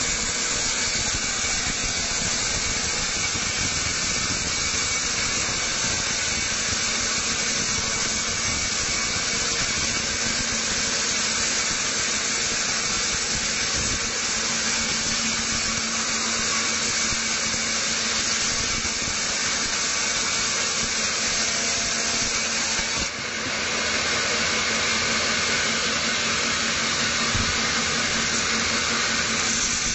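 Band sawmill blade cutting lengthwise through a squared teak log on a rail carriage, a steady hissing saw noise. About two-thirds of the way through it dips for a moment and then carries on slightly brighter.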